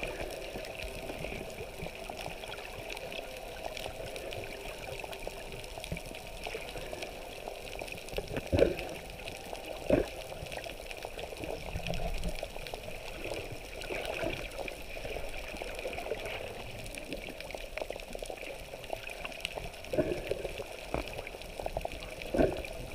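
Water sounds heard through a camera held underwater: a steady, muffled rush and gurgle of moving water, with a few short louder surges, two near the middle and two near the end.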